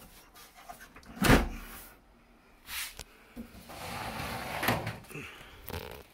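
Knocking and scraping from the metal case of a server tower being handled: one hard thump about a second in, then shorter knocks and a longer sliding scrape.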